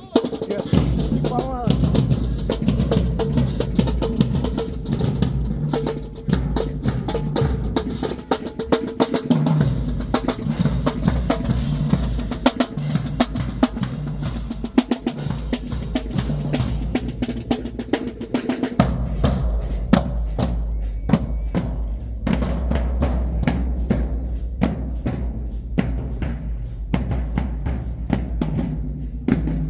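High school marching band drumline playing a cadence: rapid snare drum strokes and rolls over steady bass drum hits.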